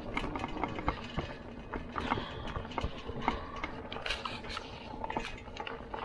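Lectric XP folding fat-tire e-bike rattling over rough dirt: a run of irregular small knocks and clatter over a low rumble.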